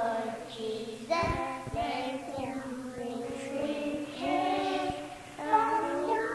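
Combined church choir with children's voices singing, with short breaks between phrases.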